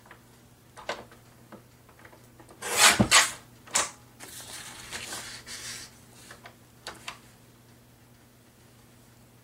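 Sheets of printed paper being handled and slid over one another on a cutting mat: a few light taps, a loud rustle about three seconds in, then a softer rustle lasting a couple of seconds.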